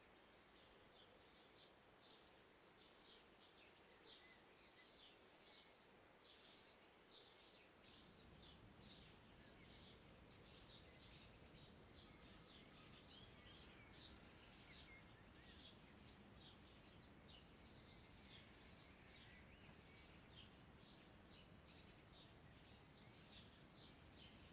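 Faint chorus of songbirds in a forest, many short high chirps and trills overlapping without a break. A low steady rumble of background noise rises about a third of the way in.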